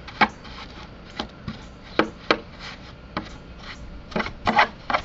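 Handling noise from a Caldera 10e RC truck chassis: a string of irregular plastic clicks and knocks with some rubbing, several close together about four and a half seconds in.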